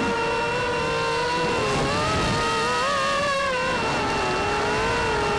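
DTS Q220 racing quadcopter's electric motors and propellers whining in flight, their pitch rising and falling together as the throttle changes, with a steady high tone above.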